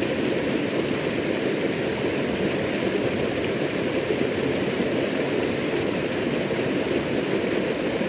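River water rushing steadily over rocks in a shallow rapid, a constant even rush with no breaks.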